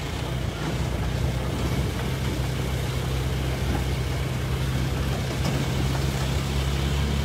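Truck engine running steadily as the truck carries on along the road, a constant low hum.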